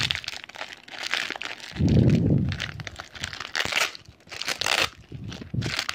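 Plastic packaging of a Beyblade booster crinkling and tearing as it is unwrapped by hand, in irregular rustles. A louder, muffled low rustle comes about two seconds in.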